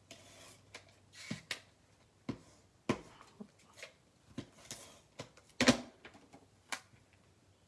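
Paper and craft supplies being handled on a tabletop: scattered rustles of paper with short taps and clicks, the sharpest a little before six seconds in.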